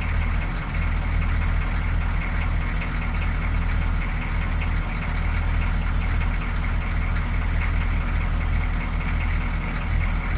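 6.2L diesel V8 idling steadily with no throttle, on a freshly replaced fuel filter. It runs evenly and keeps running, which the owner takes as the rough-idle fault being fixed.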